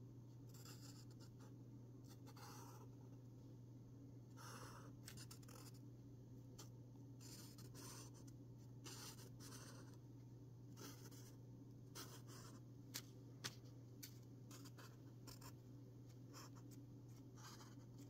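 Pen tip drawing on a pad of lined paper: a series of faint, short scratchy strokes as lines are drawn, with two sharp ticks a little past the middle, over a steady low hum.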